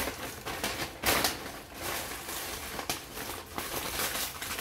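Paper takeaway bag and paper food wrapper rustling and crinkling as they are handled, in irregular bursts, loudest about a second in and again near three seconds in.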